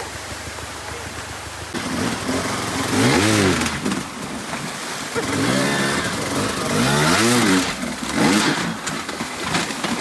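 Enduro dirt bike engine revved in several rising-and-falling surges as the bike is ridden up a rocky stream bed, over the steady rush of flowing water.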